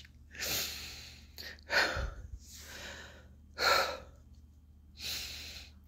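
A woman taking deep audible breaths through the mouth, four breaths in all, each lasting under a second, with short quiet gaps between them.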